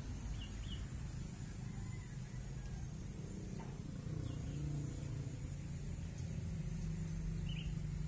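Outdoor ambience with a steady high insect drone, a few short bird chirps, and a low engine hum that grows louder in the second half, like a vehicle drawing near.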